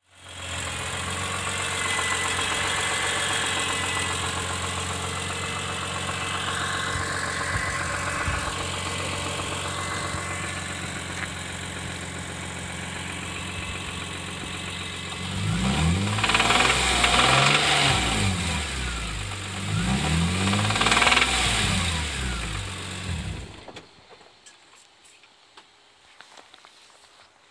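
BMW E46 M3's S54 3.2-litre inline-six idling with a rod knock, revved up and back down twice, then stopping. The knocking comes from worn-out rod bearings and a damaged crankshaft.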